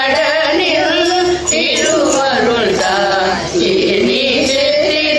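A group of women singing a devotional Murugan bhajan together in unison, a continuous sung melody.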